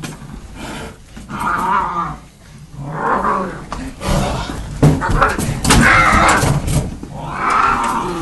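Feral tomcat yowling in repeated drawn-out cries as it is restrained, with a few sharp knocks near the middle. This is the sound of an aggressive, frightened cat that cannot be handled.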